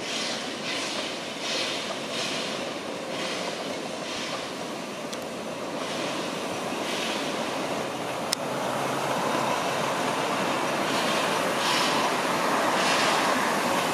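Double-headed narrow-gauge steam train approaching, its locomotives chuffing in regular exhaust beats about one every three-quarters of a second, the sound growing louder in the second half as the train draws nearer. One sharp click about eight seconds in.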